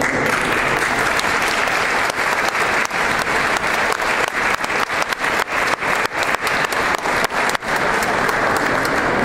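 Audience applauding, a dense patter of many hands clapping; in the middle it thins so that separate claps stand out, then fills in again near the end.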